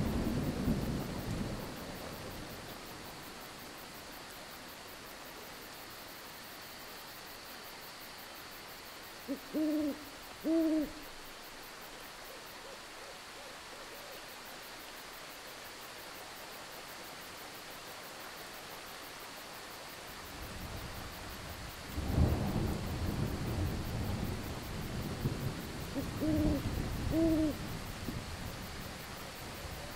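Thunder rumble fading at the start over a steady hiss of rain; an owl hoots twice about ten seconds in, then thunder rumbles again and the owl hoots twice more near the end.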